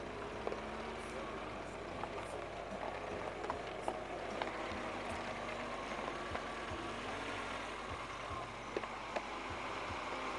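Lada VAZ-2107 car engine running at low speed as the car moves slowly over gravel, with scattered light clicks.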